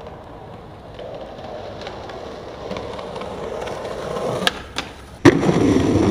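Skateboard wheels rolling on concrete, getting louder as the board approaches. About four and a half seconds in there are two sharp clacks, then a loud smack as the board lands about a second later, and it rolls on.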